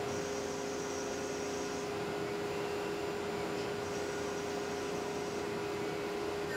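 Tormach PCNC 1100 CNC mill cutting Richlite with an end mill: a steady spindle tone over an even hiss of cutting noise.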